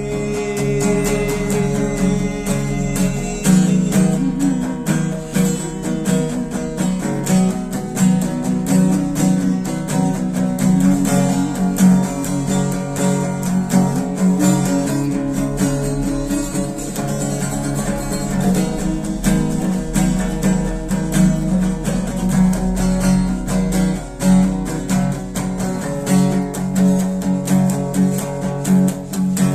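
Instrumental passage of a worship song: acoustic guitar strumming over a steady band accompaniment, without singing.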